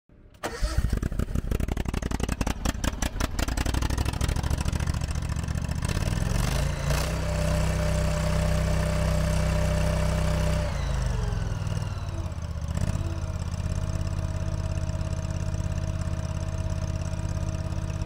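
Honda GX690 V-twin gas engine of a Stag WL322 mini skid steer starting and running with a rough, uneven beat, then revving up about six seconds in. It holds the higher speed for a few seconds, drops back near the eleven-second mark and runs steadily after that.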